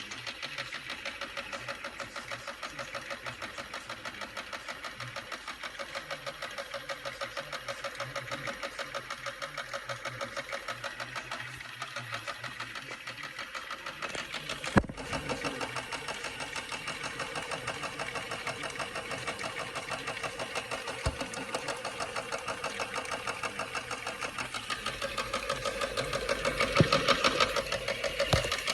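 Toy washing machine running, its small motor buzzing with a fast, even rattle as the toy shakes and walks. There is one sharp knock about halfway through, and the rattle gets louder near the end.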